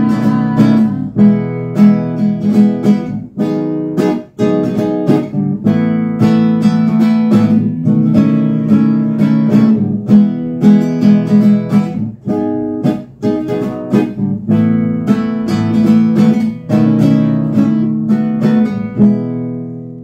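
Nylon-string classical guitar strummed in a steady rhythm, chord after chord without singing, ringing out and fading at the very end.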